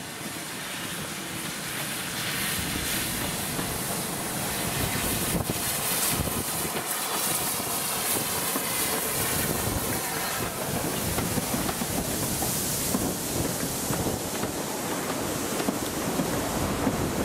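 Steam locomotive, a rebuilt Bulleid Merchant Navy class Pacific, passing close below with its train of coaches: a steady rumble of wheels on rails with steam hiss. It grows louder over the first couple of seconds, and the hiss is strongest around the middle.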